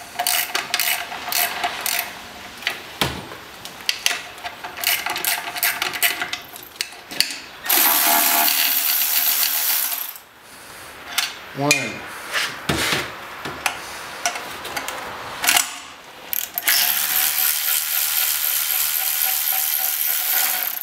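Socket ratchet clicking in quick strokes as the recoil-housing bolts are loosened, then a cordless ratchet's motor spinning a bolt out in two runs: one of about two seconds some eight seconds in, and a longer one near the end.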